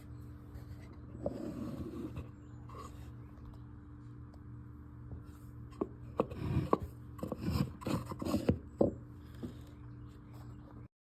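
Wooden pieces rubbing and scraping, with a cluster of sharp knocks and scrapes from about six to nine seconds in, over a steady low hum. The audio cuts off just before the end.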